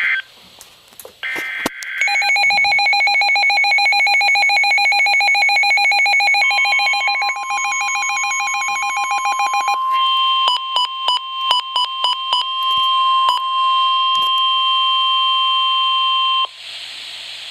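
NOAA Weather Radio alert. Brief bursts of buzzy data noise come first, then a rapidly pulsing electronic alarm beep, then a steady single warning tone that overlaps the beeping and cuts off about a second before the end. A few clicks and crackles fall in the middle.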